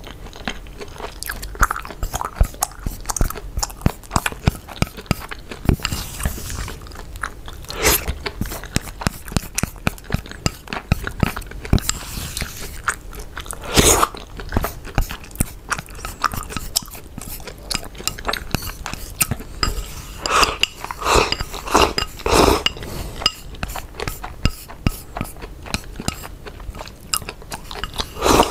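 Close-miked chewing of rice mixed with egg: wet mouth and swallowing sounds with many small clicks, and louder bursts as rice is shovelled from the bowl into the mouth, about 14 seconds in and again from about 20 to 23 seconds in. Wooden chopsticks click against a ceramic rice bowl.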